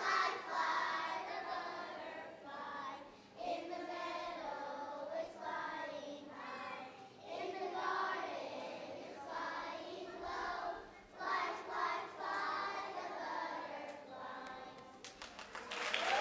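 A young children's choir singing. About fifteen seconds in, the audience breaks into applause.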